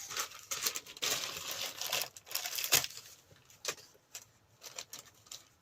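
Handling noise as a new polishing mop is readied for a bench grinder: irregular crinkling rustles and light clicks and knocks, thinning out and growing quieter in the last couple of seconds.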